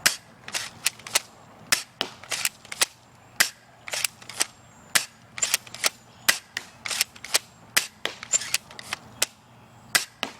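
Remington TAC-1 airsoft rifle shooting a string of BBs: a rapid, irregular series of sharp snaps and clicks, about two to three a second, some in close pairs.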